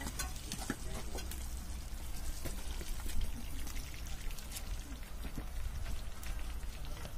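Thermit reaction burning at a rail-joint weld, with flames and molten steel at the crucible and mould: a steady sizzling crackle with many sharp pops.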